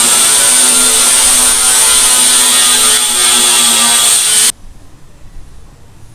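A power tool running steadily and loudly, cutting off abruptly about four and a half seconds in.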